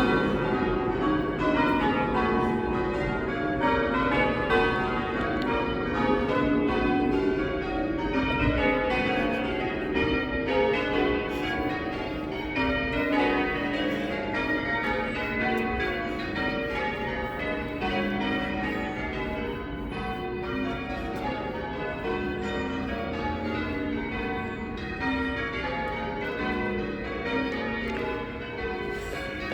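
A ring of eight 17th- and 18th-century church bells being change rung, the bells striking one after another in a steady, continuously shifting sequence. Their tone is a tad shrill and dry-sounding.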